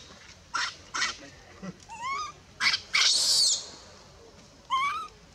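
Newborn macaque crying: several short harsh squeals, one longer screech about three seconds in, and two wavering, whimpering coos. It is distress crying as its mother pushes it away and refuses it milk.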